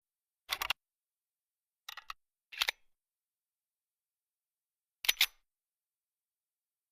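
Sound effect of a suppressed automatic pistol: four short, sharp bursts of two or three quick clicks each, about half a second in, near two seconds, just after two and a half seconds, and about five seconds in.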